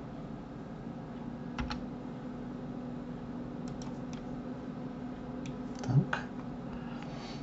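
A few scattered computer keyboard keystrokes and mouse clicks, used to operate 3D-modelling software, over a steady low electrical hum.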